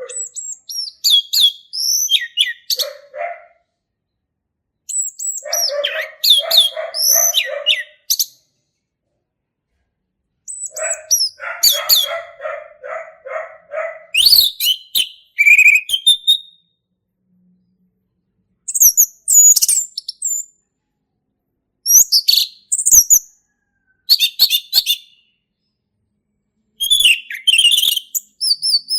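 Male orange-headed thrush singing loud bursts of rapid, varied whistled phrases with high sweeping notes. Some phrases hold a lower, fast chattering series. About seven phrases, each one to three seconds long, come between pauses of a second or two.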